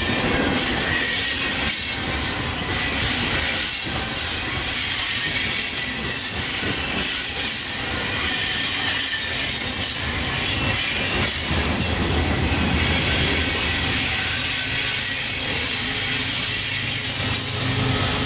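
Freight train of covered hopper cars rolling past close by: a steady rumble and hiss of steel wheels on rail, with faint high wheel squeal and occasional clanks. In the last few seconds the low drone of a diesel locomotive's engine in the middle of the train comes in and grows louder.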